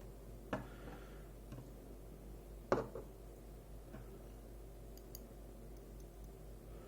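A few faint, scattered clicks of small metal lock parts and tools while pins are worked out of the Agent LS5 pin tumbler lock's chambers, the loudest about three seconds in.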